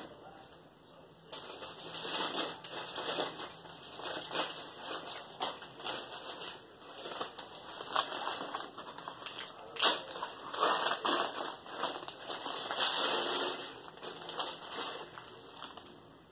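Irregular rustling and crunching handling noise: dense crackles mixed with sharper clicks, starting about a second in, the sharpest click a little before ten seconds.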